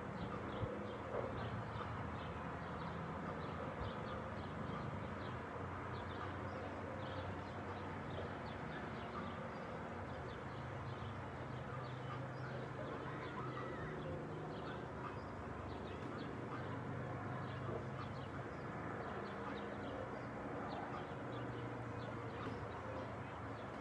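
Many small birds chirping in short calls over a steady low hum of distant traffic.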